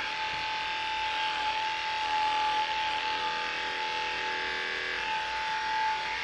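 Electric dog grooming clippers running with a steady, even hum as they are worked through a dog's short coat.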